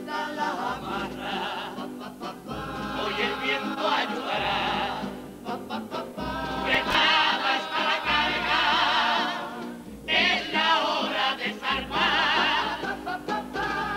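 All-male carnival comparsa chorus singing a Cádiz carnival song in several-part harmony, with Spanish guitar accompaniment. The held notes waver, and the singing swells louder about halfway through, dips briefly, then comes back strong.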